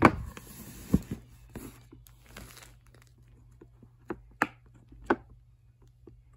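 Bubbles of a silicone butterfly-shaped push-pop fidget toy being pressed: a handful of separate soft pops and clicks, the sharpest right at the start and three more about four to five seconds in, with light handling rustle over the first few seconds.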